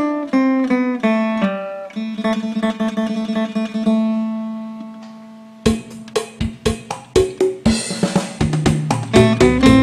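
Acoustic phin, the Isan plucked lute, played as a sound test: a plucked melody over a ringing drone note that fades away. About halfway through, a louder section cuts in with sharp, regular beats and low bass notes under the plucked notes.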